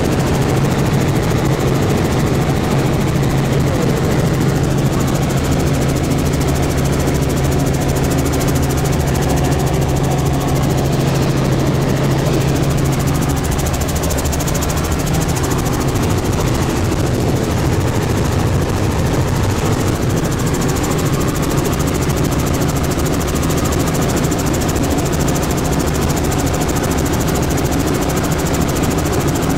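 Light helicopter in flight, heard from inside the cabin: a steady, loud drone of engine and rotor with a low hum that eases off about halfway through.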